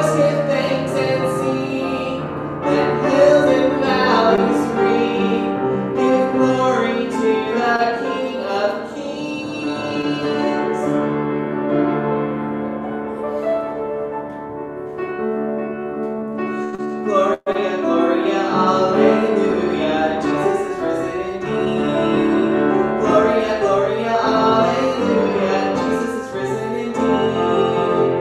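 Upright piano playing slow church music, with a very brief dropout in the sound about seventeen seconds in.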